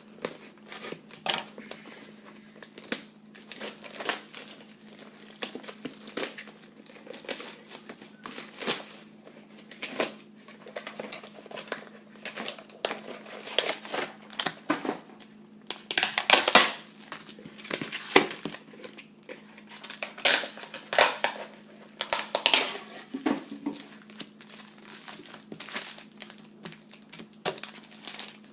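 Plastic packaging of wrestling trading card packs being crinkled and torn open by hand: irregular crackling, busiest about halfway through and again a few seconds later, over a faint steady hum.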